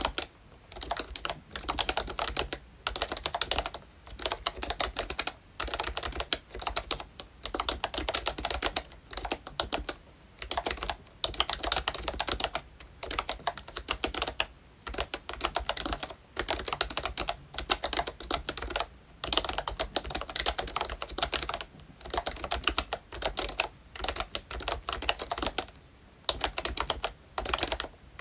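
Typing on a ROYCHE Disney Mickey Mouse retro membrane keyboard with round typewriter-style keycaps: dense key clicks in runs of one to two seconds, broken by short pauses.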